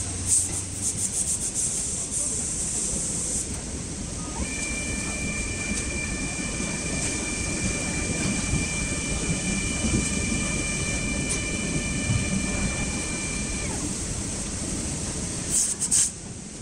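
UniPrint spiral sock printer running for about nine seconds, a steady high whine from its motors as the roller spins and the print head moves, which cuts off sharply. Before and after it, cloth rustles as socks are pulled onto and off the roller, over steady background hall noise.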